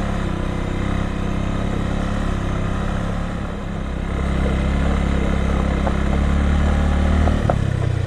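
A Bajaj Avenger cruiser motorcycle's single-cylinder engine runs steadily as it is ridden over a rough stony track. From about four seconds in it pulls a little harder and louder, then eases just before the end.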